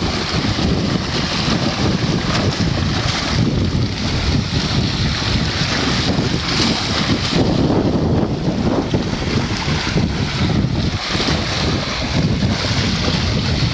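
Steady rush of a powerful whirlpool's churning water, with wind buffeting the microphone.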